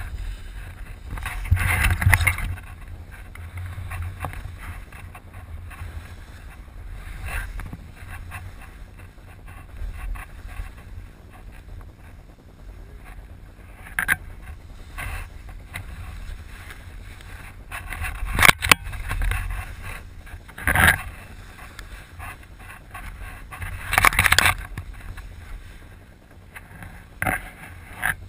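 Snowboard sliding and scraping over bumpy, chopped-up snow, with wind rumbling on the action camera's microphone. Several short, louder scraping surges come through the run.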